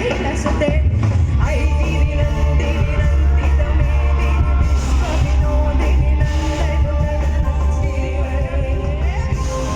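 Live band performing loudly with a singer, over heavy bass. About halfway through the singer holds one long note that slides away near the end.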